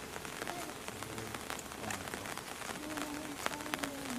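Steady rain falling, with many separate drops ticking on nearby surfaces.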